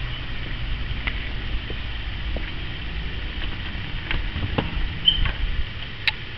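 Low handheld-camera rumble and wind noise on the microphone, then a cluster of clicks and knocks from a front door's lock and handle as it is unlocked and pushed open, with a brief squeak and a sharp click about six seconds in.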